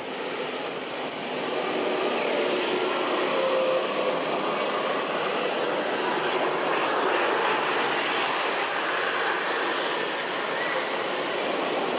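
Steady rushing outdoor noise, rising slightly about a second and a half in, with a few faint thin whistle-like tones a few seconds in.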